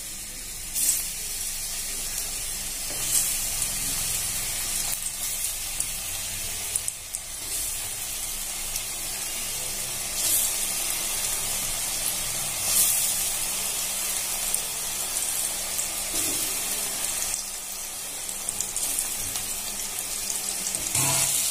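Spiced elephant-foot yam cakes (dhoka) shallow-frying in hot oil in a kadai: a steady sizzle. The sizzle swells briefly several times as more cakes are slid into the oil.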